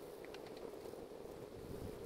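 Graphite pencil scratching on paper in short hatching strokes, faint, over a steady low hum.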